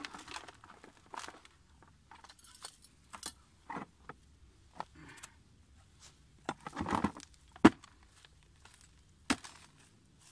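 Metal spoon and small hand tool scraping soil and roots out of a stony crevice and knocking against stones and a plastic bucket as the dirt is scooped in: scattered scrapes and clicks, with a burst of scraping followed by a sharp knock about two thirds of the way through.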